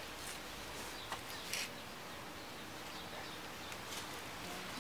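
Quiet outdoor background hiss with a few faint light taps and rustles in the first second and a half, as bagged fish and a shipping box are handled.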